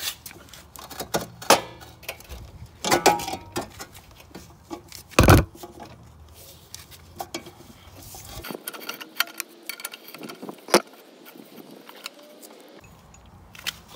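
Steel wrench and socket clinking and knocking against the mower's blade nut and rusty steel deck while the 24 mm blade nut is worked loose, in scattered strokes with one heavier knock about five seconds in.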